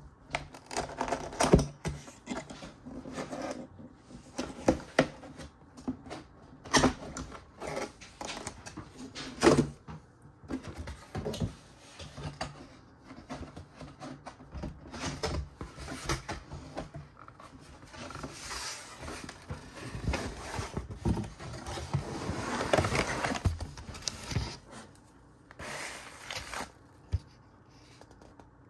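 Cardboard box being handled on a wooden table: irregular knocks, clicks, scrapes and rustling, with a longer stretch of sliding and rustling about twenty seconds in.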